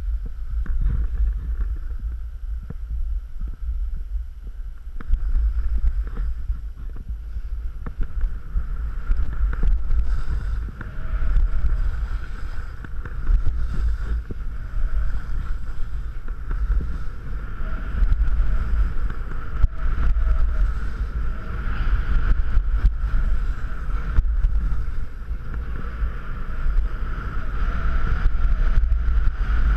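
Wind buffeting an action camera's microphone during a snowboard descent, a constant low rumble, with the hiss of the snowboard sliding and scraping over packed snow.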